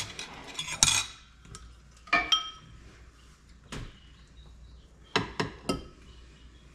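Utensils clinking and scraping against dishes, as filling is spooned from a bowl onto a plate: scattered sharp knocks that ring briefly, with a quick run of three about five seconds in.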